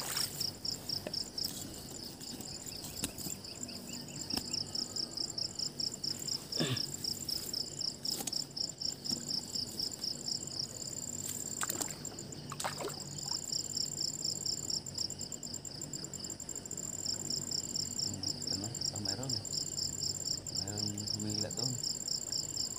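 Insects chirping in a steady chorus of rapid, evenly repeated pulses, with a second high, continuous trill above them. A few sharp clicks break in.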